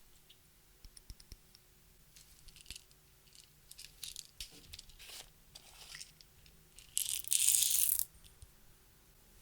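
Clear slime and crushed makeup being worked by hand: scattered small crackles and clicks, then a loud hissing crackle lasting about a second, about seven seconds in.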